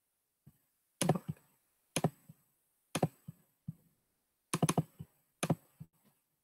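Computer keyboard keystrokes in short clusters of sharp clicks, about one cluster a second, starting about a second in.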